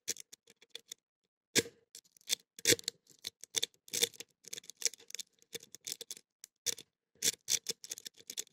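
Pick rake being worked in and out of a Blossom padlock's pin-tumbler core: quick, irregular metallic clicks and scrapes as the pins bounce. The lock is resisting raking and does not open.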